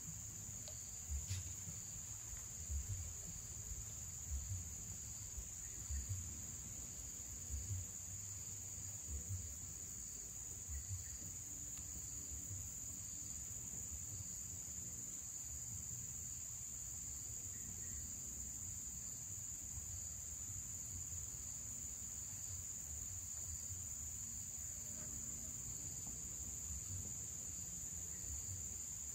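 A steady, high-pitched insect chorus from the vegetation, unbroken throughout. In roughly the first ten seconds there are also seven low thumps, about one every one and a half seconds.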